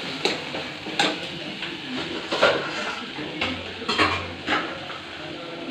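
Metal spoon clinking and scraping against an aluminium kadai as frying masala is stirred, with about six sharp clinks spread through, over a faint steady sizzle.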